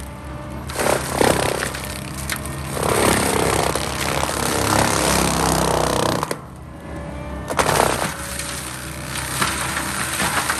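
Gyrotrac 500HF forestry mulcher head grinding brush and small trees, its toothed rotor chewing wood in loud rough stretches over the steady run of the track loader's engine, with a brief lull about two-thirds of the way through.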